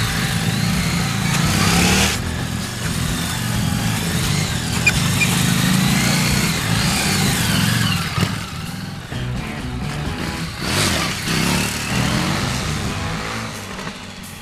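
Harley-Davidson motorcycle engine running and being revved, its pitch rising and falling.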